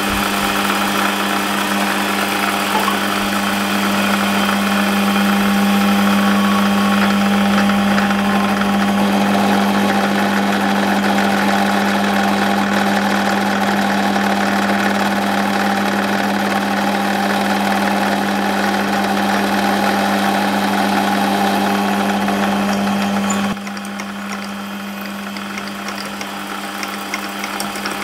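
Small benchtop metal lathe running steadily, its motor humming, while a twist drill in the tailstock bores out a phosphor bronze bush. The level and hum drop noticeably about 23 seconds in.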